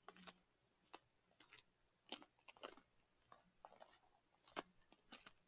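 Faint, irregular crunching footsteps of a hiker walking up a snow- and ice-covered forest trail, about one or two steps a second.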